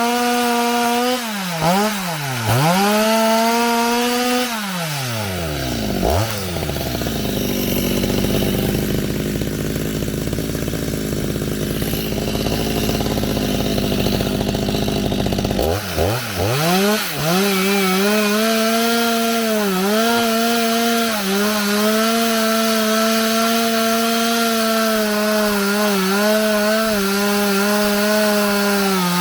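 Two-stroke chainsaw engine held at high revs with two brief dips, then dropping to idle about five seconds in. It idles for roughly ten seconds, then revs back up and holds high revs with small repeated dips in pitch.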